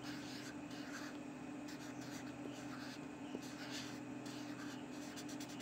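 Pencil scratching on paper in short, uneven strokes as small details are drawn, over a steady low hum.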